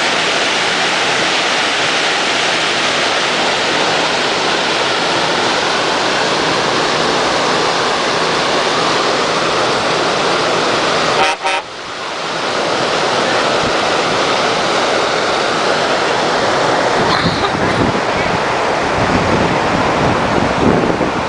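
Steady loud rush of water churned up in a riverboat's wake, with wind buffeting the microphone growing stronger in the second half. The sound dips briefly about eleven seconds in.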